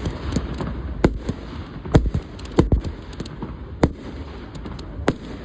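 Fireworks going off: a string of sharp bangs at irregular intervals, about five loud ones among many smaller pops and crackles, over a low rumble.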